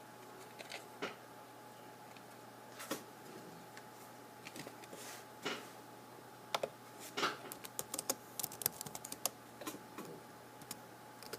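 Light, irregular clicks and taps, with a quick flurry of them from about six and a half to nine and a half seconds in, over a faint steady hum.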